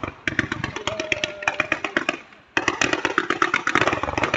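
Firework batteries firing comets in a fast string of sharp shots, many a second. The shots stop for a moment about halfway through, then resume more densely.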